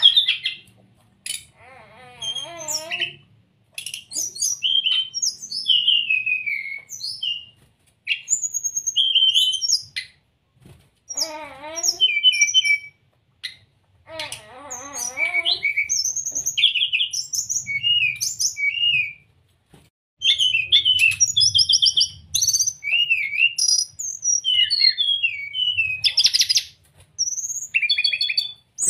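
Brown-chested jungle flycatcher singing: bursts of varied high whistles and twittering notes with short pauses between them, and a few lower, wavering warbled phrases.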